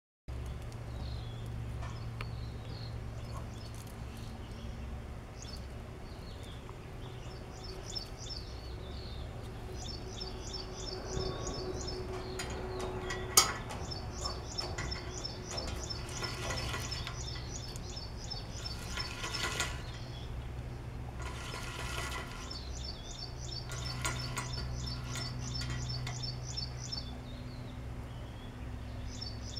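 Small bird chirping in rapid repeated trills over a steady low hum. A plastic roller-hook twine spool is handled: one sharp click about thirteen seconds in, then a few brief rustling bursts.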